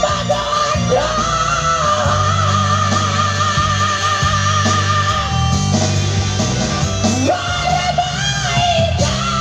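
A voice singing a Batak-language song over an accompaniment with guitar and a steady bass line, holding long notes with a wavering vibrato.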